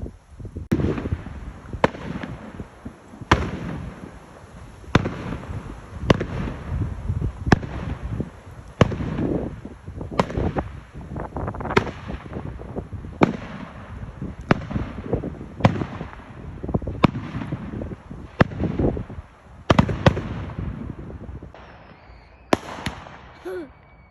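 Fireworks display: a rapid series of sharp aerial shell bangs, about one or two a second, each followed by a low rumbling echo. The bangs stop shortly before the end.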